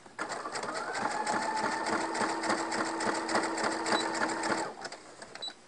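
Electric sewing machine stitching. The motor's whine rises as it speeds up, then holds steady under rapid, even needle strokes, and it stops about four and a half seconds in.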